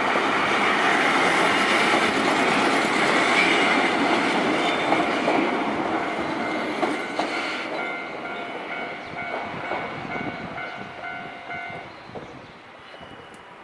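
Electric commuter train of the Kishigawa Line passing over a level crossing, wheels clacking on the rails, loud for the first several seconds and then fading as it moves away. Behind it the crossing's warning bell rings in a steady, rapid repeating pattern, heard clearly once the train has faded, and stops about twelve seconds in as the crossing clears.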